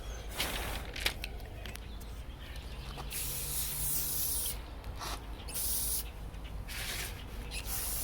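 Clear sealer being sprayed in several hissing bursts. The longest burst, about a second and a half, starts about three seconds in, with shorter bursts before and after it.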